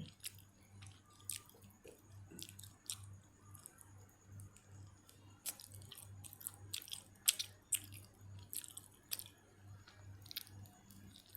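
A person chewing stuffed grape leaves and stuffed cabbage rolls close to the microphone: irregular, soft mouth clicks and smacks, over a faint steady low hum.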